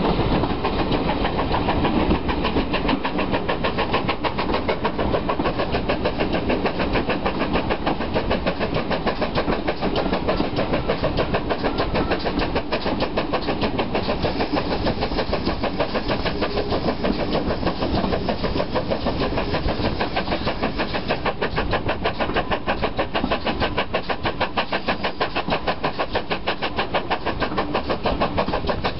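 Ex-GWR Small Prairie 2-6-2T tank engine 5553 working hard up a steep gradient: a fast, steady rhythm of sharp exhaust beats, heard from a carriage window of the train it is hauling.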